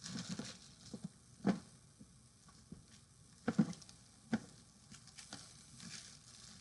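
Scattered knocks, bumps and rustling as a large cardboard box and its packing are handled, with the sharpest thuds about a second and a half in and around three and a half seconds in.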